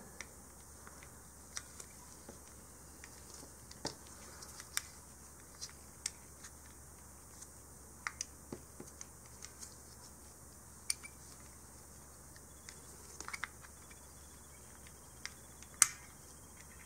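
Light clicks and taps of small machined metal parts being handled and pushed together by hand, with one sharper click near the end.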